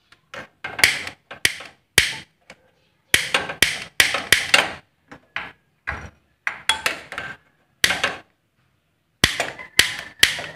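Repeated sharp clicks of a lighter being sparked again and again at a gas stove burner, coming in irregular clusters. The burner does not catch because its gas valve has not been opened.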